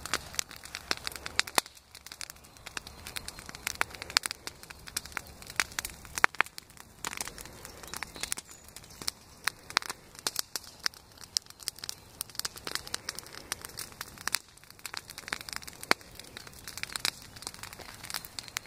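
Bonfire of dead branches and brush burning, crackling with many irregular sharp pops and snaps.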